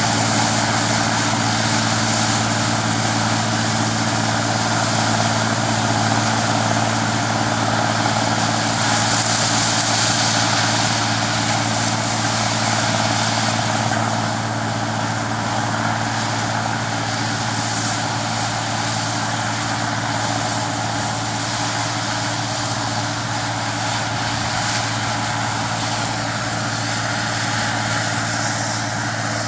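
Claas Dominator 106 combine harvester running steadily, its engine humming under a broad mechanical hiss. It gets a little quieter about halfway through.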